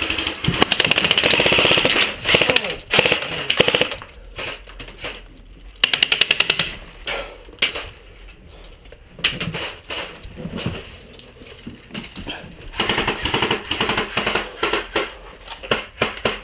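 Airsoft guns firing full-auto, a fast rattle of shots. A long burst of about two seconds comes near the start and another stretch of rapid fire near the end, with scattered sharp single cracks and clicks in between.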